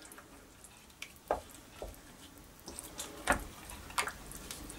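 Spatula stirring chicken pieces through a thick yogurt and coconut-milk sauce in a slow cooker's stoneware crock: soft, wet stirring with a few scattered clicks and knocks against the crock.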